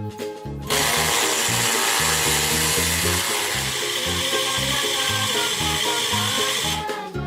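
Small motor of a toy kitchen appliance running for about six seconds, starting and stopping abruptly, over background music with a steady beat.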